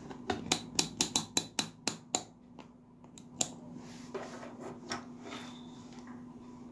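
Rotary range selector of a Mastech digital multimeter being turned through its detents, clicking about ten times in quick succession over two seconds. A lone click follows about a second later, then a few faint knocks.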